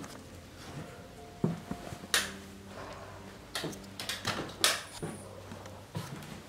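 Footsteps and knocks on old wooden floorboards and stairs: a few sharp, uneven thuds, loudest about two seconds in and again around four to five seconds in.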